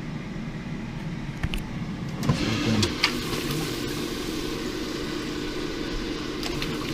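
Air fryer running: a steady whir from its fan with a low hum. There are a few sharp clicks between about one and a half and three seconds in, and the whir grows louder from about two seconds in.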